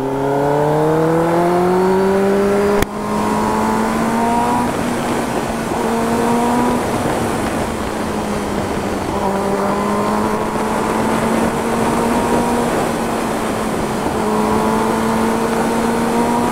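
Kawasaki ZX10R's inline-four engine under way, climbing in pitch for about three seconds, then holding a steadier note with small rises and falls, under a constant rush of wind. A sharp click sounds near three seconds in.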